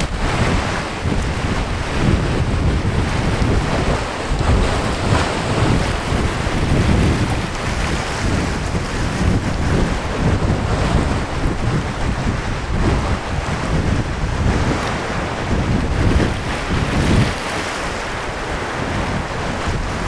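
Sea waves washing on the shore, with gusts of wind buffeting the microphone.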